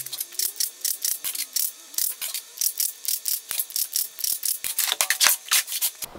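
Cordless drill run in short bursts against the bolt holes of small plasma-cut steel plates, giving a rapid scraping, ratcheting run of clicks at about four a second over a faint wavering motor pitch, with the steel plates clinking near the end.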